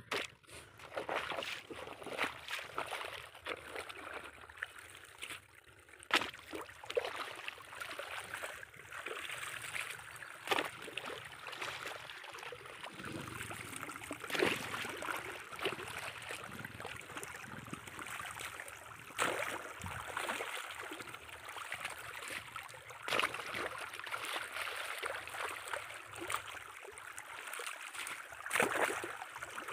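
Water gushing and splashing through a cut in the earthen bank of an irrigation channel, with repeated sharp strikes of a hoe chopping into the wet mud.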